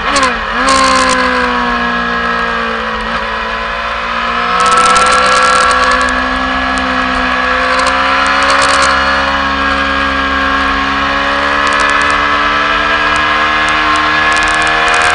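Racing motorcycle's engine heard from an onboard camera, running hard at high revs. The pitch dips and recovers quickly about half a second in, then falls gradually over the next few seconds before holding steady and slowly rising again as the bike accelerates. Wind rushes over the camera.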